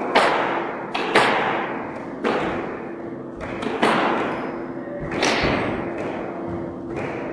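Squash rally: the ball smacking off the rackets and the court walls, about ten sharp hits in seven seconds, each ringing on in the echoing court.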